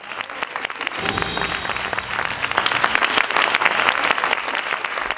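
Audience applauding, the clapping building about a second in and holding steady.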